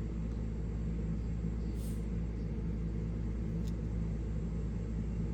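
Steady low background rumble with a faint tick about three and a half seconds in.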